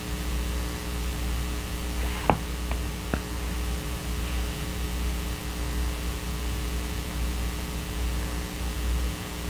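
Steady low electrical mains hum with its evenly spaced overtones, picked up in the recording, with three small clicks about two to three seconds in.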